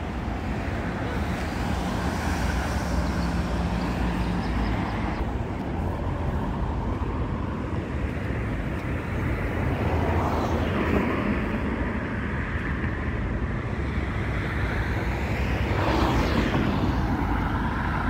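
Road traffic running steadily on a nearby road, with vehicles swelling louder as they pass about ten seconds in and again near the end.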